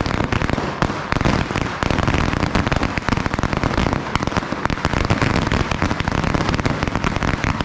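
Katan F3 firecracker chain (Knallkette) of 50,000 shots going off: a dense, unbroken rattle of small bangs, with brief dips about one and two seconds in.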